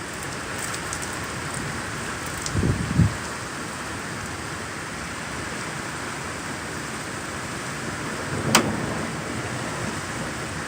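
Heavy rain pouring down steadily in a severe thunderstorm. A couple of low thumps come about three seconds in, and one sharp knock comes near the end.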